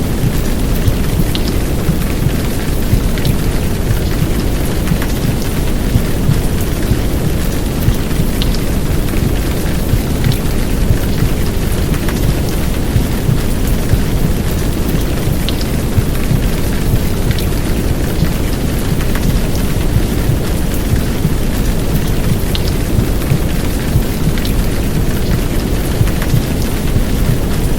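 Heavy downpour rain mixed with a deep, steady womb-sound rumble, dense and even, with scattered sharp drop ticks on top.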